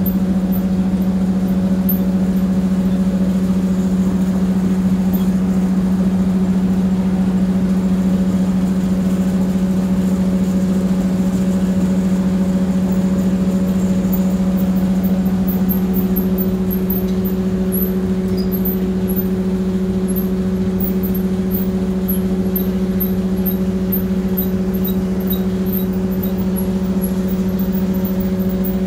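Factory machinery running steadily, a loud constant hum with fainter higher tones above it; the balance of the tones shifts slightly about halfway through.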